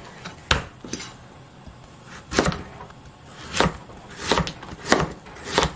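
A kitchen knife slicing through a chunk of Korean radish and knocking on a plastic cutting board: about seven separate cuts at uneven spacing, coming roughly once a second in the second half.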